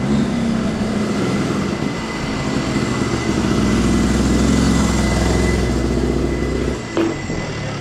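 A racing kart engine running near idle. It starts abruptly, is fullest through the middle, eases about seven seconds in, and a single sharp click comes just after.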